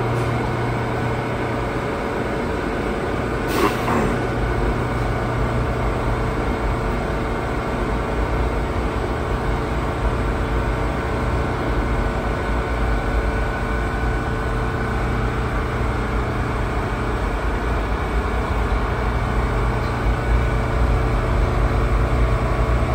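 New York City subway A train standing at the platform, its onboard equipment humming steadily. A short, sharp hiss comes about three and a half seconds in.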